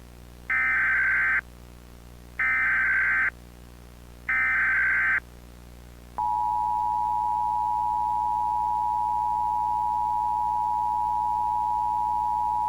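Emergency Alert System header and attention signal: three short, harsh SAME data bursts, each under a second and about two seconds apart, then the steady two-tone EAS attention signal starting about six seconds in. Together they announce an Amber Alert, a child abduction emergency.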